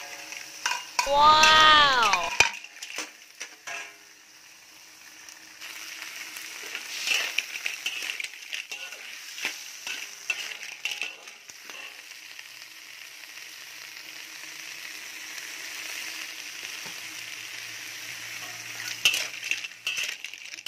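Lala clams sizzling as they are stir-fried in a steel wok, with a steady frying hiss and a metal spatula scraping and clinking against the pan now and then, loudest near the end.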